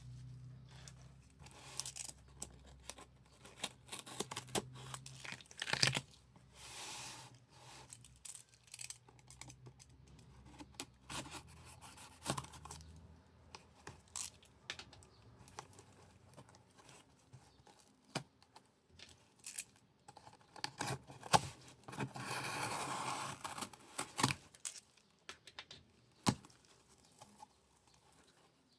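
Packaging being torn open and crinkled by hand, in a string of short rustles and sharp clicks, with a longer stretch of tearing and rustling about 22 seconds in.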